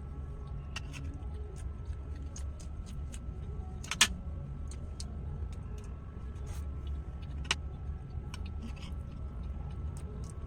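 A person eating close to the microphone: scattered short clicks and smacks of chewing, with a sharper click about four seconds in, over a steady low hum.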